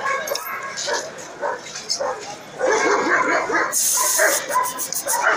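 Dogs barking and yelping.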